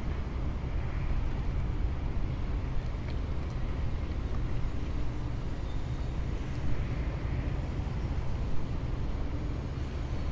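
Steady low rumble of outdoor background noise with a few faint ticks and no distinct event.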